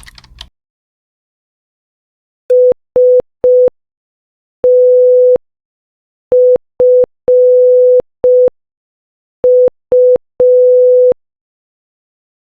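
Morse code sent as a steady single-pitch beep tone at slow speed, spelling S-T-F-U: three short beeps, one long, then short-short-long-short, then short-short-long, with longer gaps between letters.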